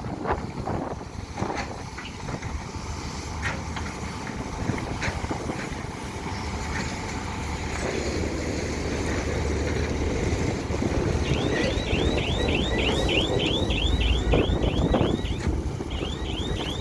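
Diesel excavators running while digging canal mud, a steady low rumble with scattered knocks and wind buffeting the microphone. About two-thirds of the way in, a quick run of high, rising chirps starts, about three or four a second.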